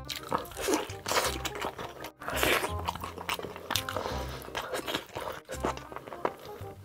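Close-miked mukbang eating sounds: biting and chewing big mouthfuls of food, with background music under them. The sound breaks off abruptly twice.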